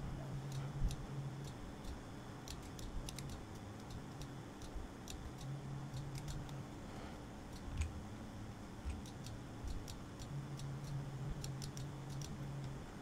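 Faint, irregular clicks of a computer mouse and keyboard, a few close together at times, over a low hum that comes and goes.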